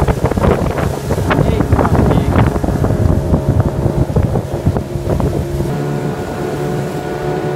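Tiller-steered outboard motor running steadily, pushing an aluminium skiff along the river. Wind buffets the microphone heavily for the first few seconds, then the engine's even drone comes through more clearly.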